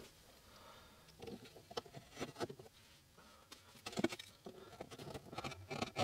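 A 6mm V-tool hand-carving a groove in wood: a run of short, irregular scraping cuts with a few sharper clicks as the edge bites and breaks off chips.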